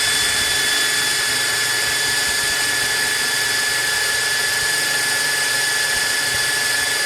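Metal lathe running steadily with a constant high whine over a broad hiss.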